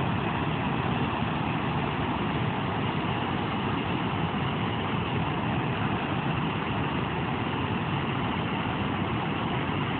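Water rushing steadily through a dam's open floodgates, an even, unbroken rushing of turbulent outflow with all gates open.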